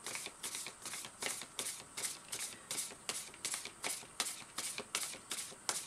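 Tarot deck being shuffled by hand, the cards clicking against each other in a quick, even run of about five soft slaps a second.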